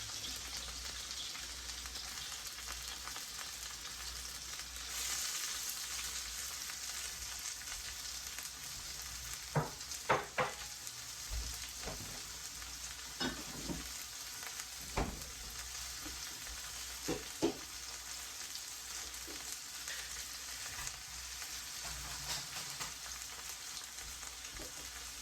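Thawed mixed vegetables and onion sizzling in oil in a hot wok, a steady hiss, while being stirred; in the middle a utensil knocks against the wok several times in short quick strokes.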